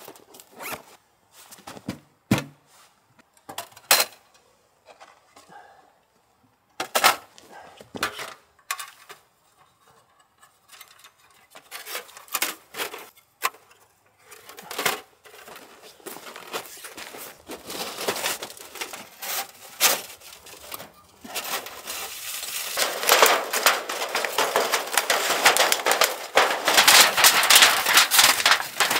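A folding titanium wood stove being packed away: scattered clinks and knocks of its thin metal panels. About two-thirds of the way through, a longer and louder stretch of dense crinkling and rustling begins as the thin rolled titanium stove pipe and its carry case are handled.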